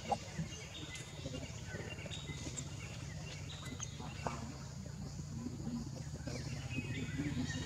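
Forest ambience: a steady low hum, with high, steady calls of forest wildlife above it that switch pitch now and then. A few faint clicks, the sharpest just after the start.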